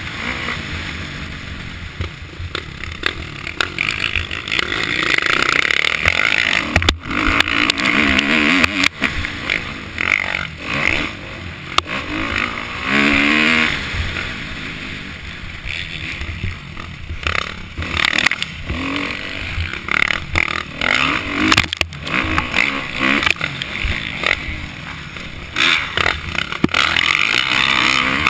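Kawasaki KX450F motocross bike's 449cc single-cylinder four-stroke engine, heard from a camera mounted on the bike as it is ridden hard on a dirt track. The engine revs rise and fall as the throttle opens and closes through the turns.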